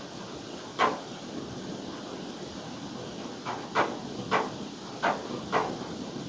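Small clicks and ticks from hands working a metal crochet hook through yarn: one sharp click about a second in, then a quick run of five more in the second half.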